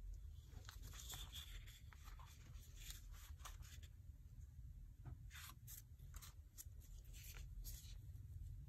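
Faint rustling and crinkling of stiff watercolour paper as the pages of a spiral sketchbook are handled and turned, in short irregular strokes over a low steady hum.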